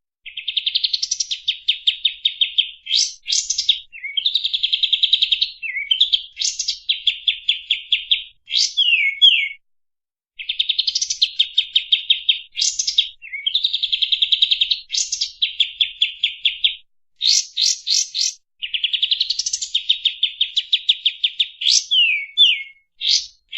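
Kapas tembak bulbul singing its fast 'shooting' song: tightly packed, rapid trills of repeated high notes in phrases a second or two long, some ending in quick upward sweeps, with only brief pauses between them.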